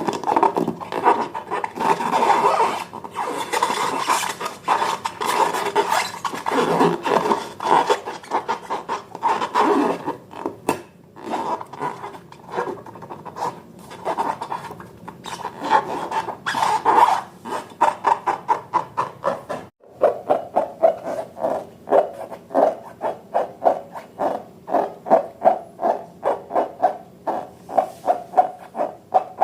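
Slime being stirred and scraped against a bowl with a utensil, in repeated strokes; after a break about twenty seconds in, the strokes come evenly at about two a second.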